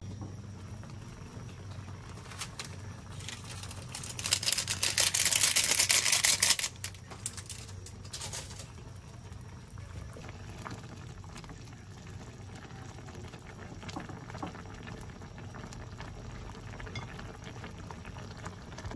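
Chicken adobo boiling in a pan: a steady bubbling simmer, with a loud hiss for about three seconds shortly after the start that cuts off suddenly.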